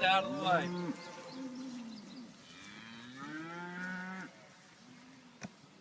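Cattle mooing: several overlapping calls at first, then one longer moo in the middle. A single sharp click near the end.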